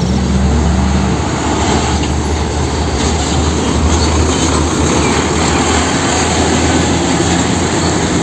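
Heavy vehicle running: a steady low engine drone under a dense, noisy rumble that holds at one level throughout.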